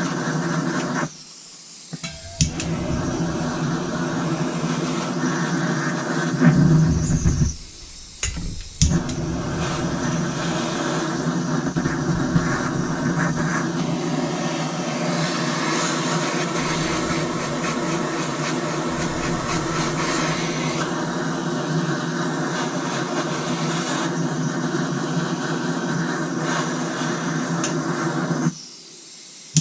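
A small electric power tool motor running steadily, cutting out briefly about a second in, again around eight seconds in, and near the end.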